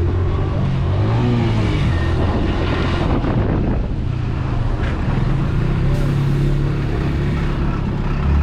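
Motorcycle engine running while riding, its note shifting up and down a little, under a steady rush of wind and road noise.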